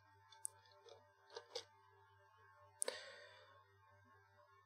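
Near silence with a steady low hum, broken by a few faint computer mouse clicks: light ones in the first two seconds and a sharper one near the middle.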